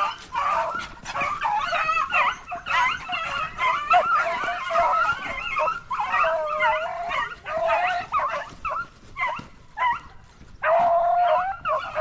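Hunting beagles yelping and baying almost without break, high wavering cries overlapping one another: the sound of the dogs in full cry chasing a flushed rabbit. There is a brief lull a little past ten seconds in.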